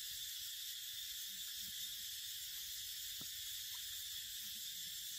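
Forest ambience: a steady high-pitched hiss, with a few faint soft ticks.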